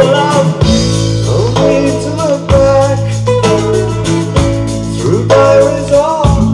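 A song with singing and guitar played loudly through hi-fi speakers and picked up on an overloaded camera microphone. The amplifier has its loudness control on, with the bass turned down to 1, mid at 4 and treble at 7.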